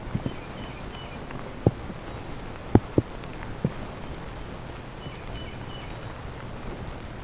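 Steady rain in the woods, with big drops tapping irregularly on something close by, about six sharp taps. A few faint, short high chirps come in near the start and again later.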